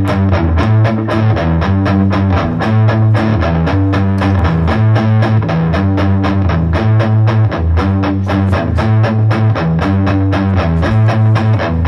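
Instrumental rock music led by electric guitar over a bass line, with a steady beat of about four strokes a second.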